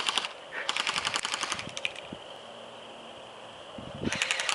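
Airsoft guns firing in rapid bursts, about a dozen shots a second: a short burst at the start, a longer one of about a second, and another near the end.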